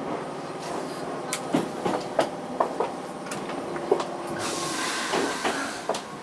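Hankyu electric train rolling slowly into a station platform, heard from inside the leading car: scattered clicks and knocks of the wheels over rail joints and points, with a burst of hiss a little past four seconds in that lasts about a second.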